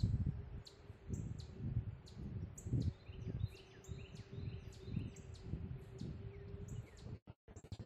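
Several songbirds chirping in quick, short high calls over the even thud of footsteps walking on a trail, with a faint steady hum underneath. The sound breaks off abruptly near the end.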